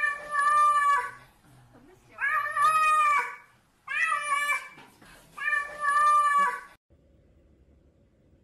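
A cat meowing loudly in four long, drawn-out calls, yowling more than mewing, each about a second long with short pauses between.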